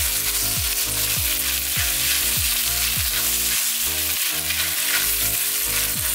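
Shredded pork with chili bean paste sizzling in a hot wok over medium-high heat, a steady frying hiss, as a silicone spatula stirs and turns it. Background music with a repeating low beat plays underneath.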